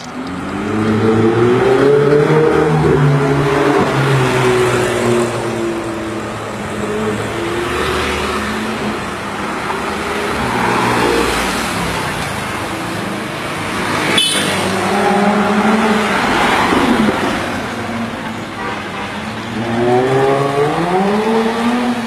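Sports car engines, a Ferrari and a Porsche 911 among them, accelerating hard past on a street in a series of runs. Each time the engine note climbs in pitch as it pulls. There is a short sharp click about midway.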